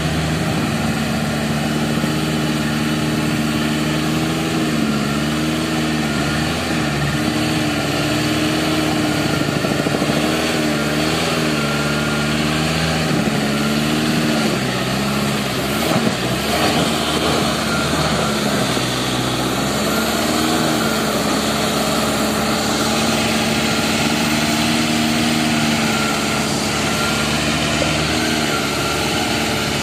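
Suzuki Samurai 4x4's engine running at low revs while crawling off-road, its pitch dipping and rising again and again as the throttle is worked. About halfway through there is a brief burst of rougher noise.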